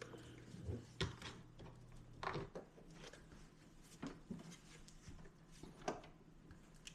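A few light, scattered knocks and clicks from hands handling the PC enclosure and its loose metal cover, over a faint steady low hum.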